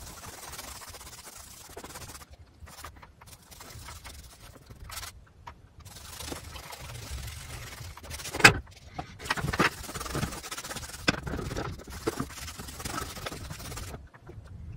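Paintbrush scraping and swishing over a canvas in repeated strokes as an acrylic base coat is spread, with one sharp knock about eight and a half seconds in and a few smaller clicks after it.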